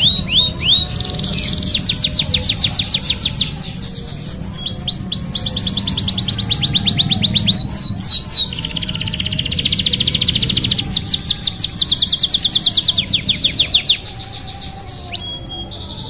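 Domestic canary singing a long, unbroken song of fast high trills: rapid repeated sweeping notes that change from one roll to the next every second or two, with a few slower chirps near the end. A low background hum runs underneath.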